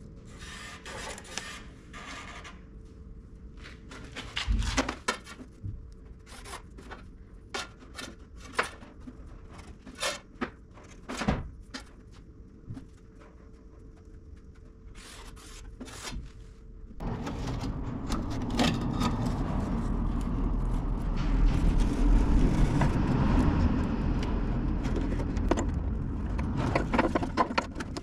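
Clicks, taps and scrapes of tools and sheet metal being handled. About seventeen seconds in, a power tool starts and runs steadily, cutting the rusted area out of the car's quarter panel.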